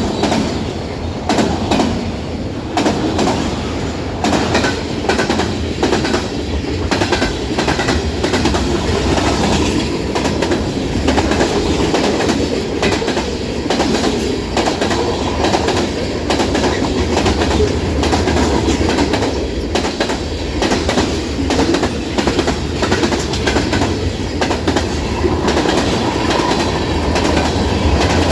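Freight train cars rolling steadily past, wheels clacking over the rail joints in quick irregular clicks above a continuous rumble.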